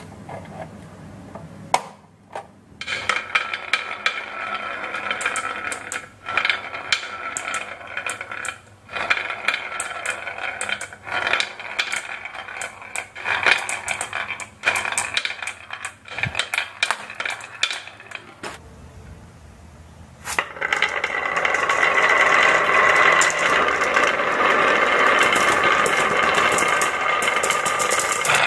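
Many marbles rolling down the wavy grooves of a red wooden HABA slope, clicking and clacking against each other and the wood in a dense rattle. It pauses a little after the middle, then comes back louder and denser near the end.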